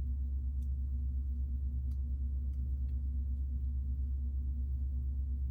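Steady low electrical hum, with a few faint clicks of plastic Lego pieces being handled and pressed together.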